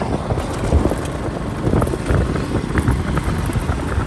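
Motorcycle cruising at about 55 km/h, heard from the rider's position: the engine runs under an uneven low rumble of wind and road noise on the microphone.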